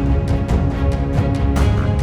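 Background music with a steady driving beat, about four hits a second, over sustained low notes.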